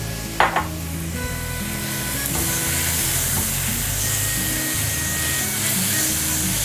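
Chicken pieces, sliced onion and diced red pepper sizzling in a frying pan while a silicone spatula stirs them, under background music. There are two quick knocks about half a second in, and the sizzling hiss grows a little stronger partway through.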